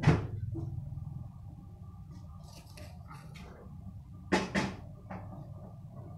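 Sharp knocks and clicks on a wire birdcage: one loud knock at the start, lighter clicks in the middle, and two loud knocks close together about four and a half seconds in.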